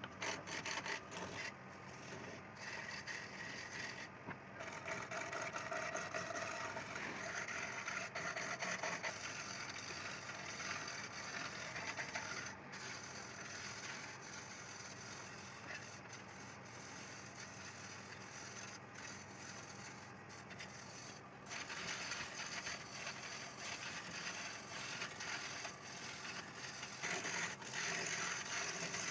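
Wood lathe spinning a wooden bed leg while a turning chisel cuts into it: a continuous scraping cut that grows and fades as the tool is worked, quieter through the middle and stronger again toward the end.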